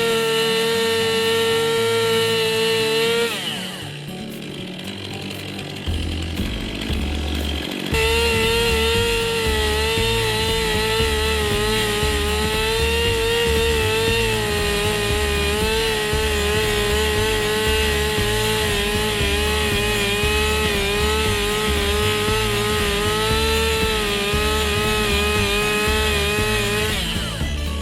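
Two-stroke chainsaw engine at full throttle; it is let off and drops away about three seconds in, then opens up again and runs with a wavering pitch under load as it cuts through a log, easing off right at the end. Background music with a steady beat plays underneath.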